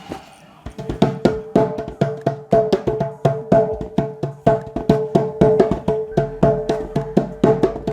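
Music: a fast percussion track of crisp wood-block-like hits over a steady pitched note, starting just under a second in.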